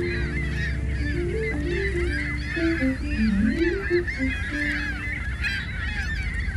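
A flock of geese honking, many calls overlapping without a break.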